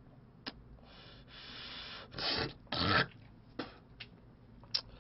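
A man's noisy breathing while smoking a cigarette: a soft long exhale, then two short loud breathy bursts about half a second apart, followed by smaller rustles and a sharp click near the end.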